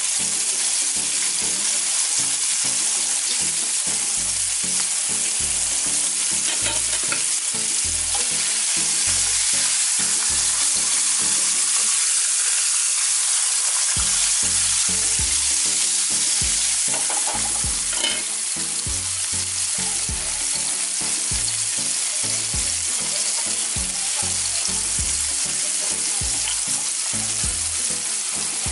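Flour-coated chicken breast strips deep-frying in hot oil in a pan: a steady, hissing sizzle. A single brief knock sounds about 18 seconds in.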